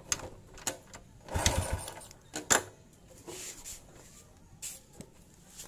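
Honda motorcycle engine turned over once by the kickstarter about a second and a half in, without firing because the ignition is switched off, with sharp mechanical clicks around it. The engine is being cranked to make the pulser send its signal.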